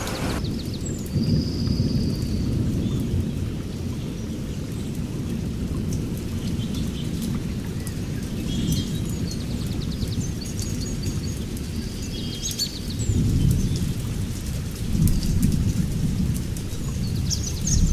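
Thunderstorm: low thunder rumbling and rolling on with rain, swelling twice in louder rolls in the second half.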